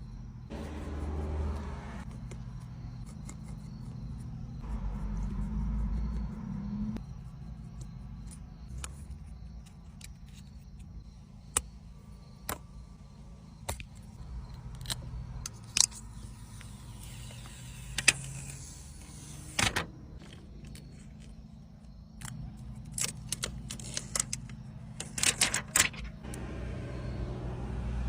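Scattered sharp clicks, taps and small metallic clinks, like small tools and parts being handled, over a steady low hum. There is a cluster of quick clicks a little before the end.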